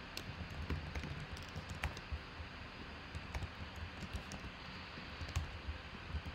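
Typing on a computer keyboard: scattered, irregular key clicks.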